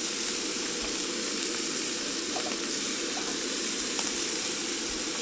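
Smash burger patties sizzling steadily in a very hot pan on a Coleman Hyperflame gas camp stove.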